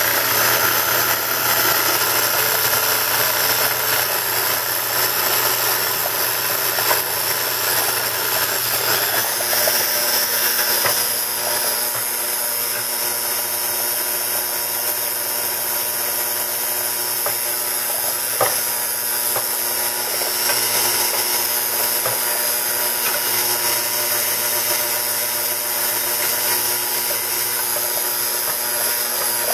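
Electric mixer running at steady speed, its twin wire beaters whirring through egg and sugar as they are beaten until thick. The whir drops a little in level about ten seconds in.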